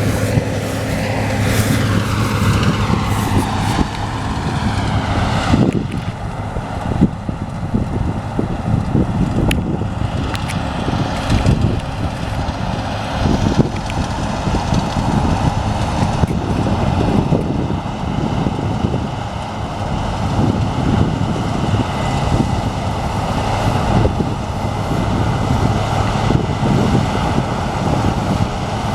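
Heavy diesel farm machinery running steadily, with a deep steady hum and wind on the microphone; a pitch slides downward over the first few seconds.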